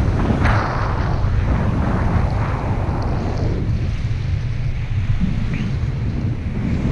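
Airflow buffeting the microphone of a paraglider in flight: a loud, steady low rumble with gusty rushes, the strongest about half a second in.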